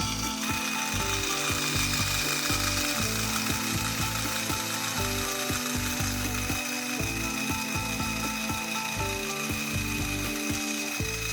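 Ratchet-and-pawl mechanism in a construction-kit model clicking repeatedly and irregularly as it turns. A steady high whine and shifting low tones run alongside.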